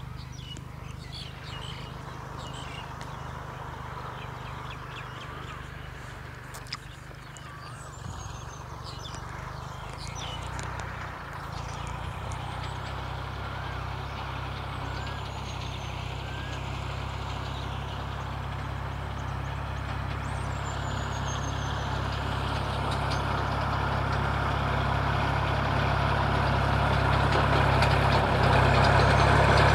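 Kubota L3608 diesel tractor engine running steadily while pulling a six-disc plough, growing louder as it comes closer. A few short bird chirps sound above it.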